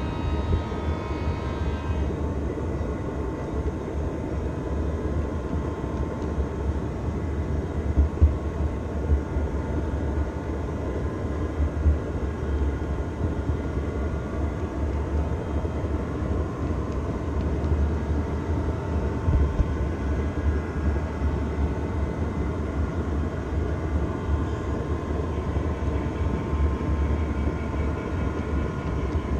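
Model train rolling along its track, heard through a camera riding on one of its cars: a steady low rumble with a faint whine above it.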